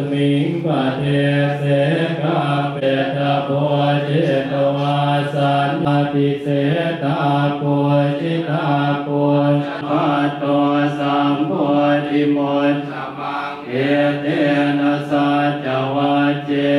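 Buddhist monks chanting Pali verses together in unison on a low, steady monotone, with evenly paced syllables and a short breath pause about three-quarters of the way through.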